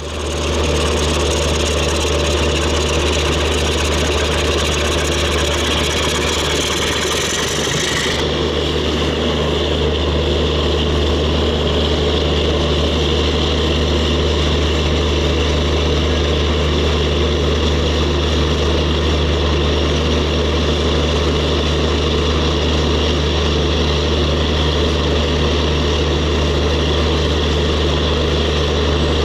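MLW-built ALCO RSD-34 diesel-electric locomotive idling steadily, with a strong low hum. About eight seconds in, the hiss above it softens.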